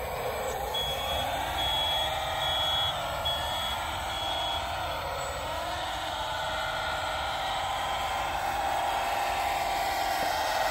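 Electric motor and hydraulic pump whine of a 1/14-scale RC hydraulic wheel loader, rising and falling in pitch as it drives and works its bucket. A reversing beeper sounds five times in the first few seconds.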